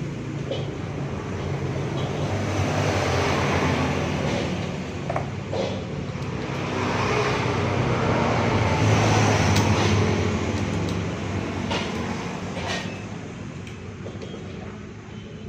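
A motor vehicle engine running, growing louder to a peak about two-thirds of the way through and then fading, with a few light clicks.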